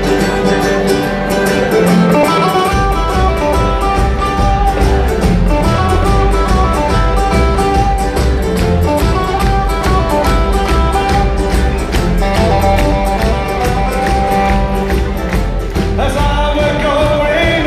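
Live band playing loudly, with ukuleles, electric guitar, double bass and drums; the bass and drums come in about three seconds in. A man's singing voice joins near the end.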